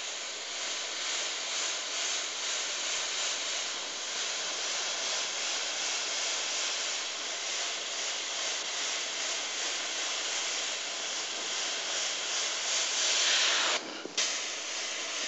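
Double-action airbrush spraying paint: a steady hiss of air running through the brush as flare strokes are laid down. The air stops briefly near the end, then comes back.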